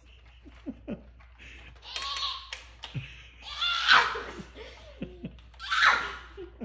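A child laughing in three loud bursts, about two, four and six seconds in. About a second in come two short sharp clicks from the pump of a Nerf Rival Roundhouse XX-1500 blaster being worked.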